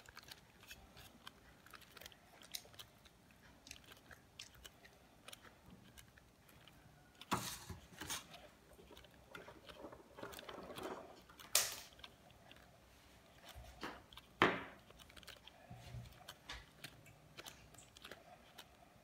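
Thin plastic bag crinkling and crackling faintly as it is handled and clamped in a handheld heat sealer, with a few sharper clicks, three standing out in the second half.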